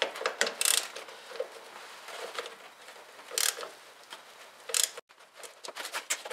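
Socket ratchet loosening the nut on a snowmobile's idler wheel support block: scattered metal clicks and scrapes, then a quick run of ratchet clicks near the end.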